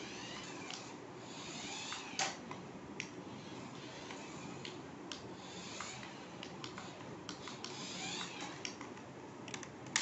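Small remote control toy car driving across a hard polished floor: its electric motor and gears whirring, coming and going as it moves, with scattered sharp clicks and ticks.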